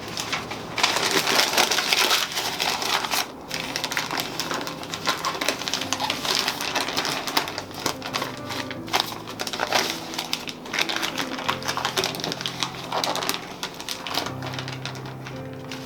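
Aerosol spray paint cans hissing in many short, quick bursts, with rapid rustling and clicking between them, as in sped-up spray painting. Soft background music runs underneath.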